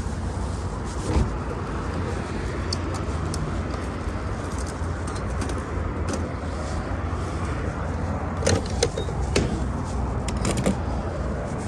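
Clicks and knocks of a car's fuel filler being handled: the gas cap comes off and a pump nozzle goes into the filler neck, with a cluster of clicks near the end. A sharp knock comes about a second in, and a steady low rumble runs underneath.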